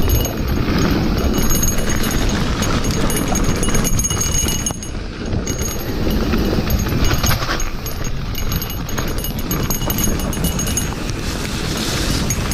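Santa Cruz Heckler mountain bike descending a gravel forest trail at speed: a steady rushing rumble of tyres on the gravel and the bike rattling over bumps, with wind on the microphone.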